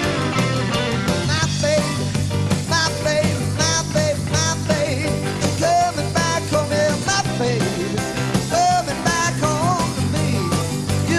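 Live blues-rock band playing: electric guitar, bass guitar and drum kit, with a lead line of bent, wavering notes over a steady low bass.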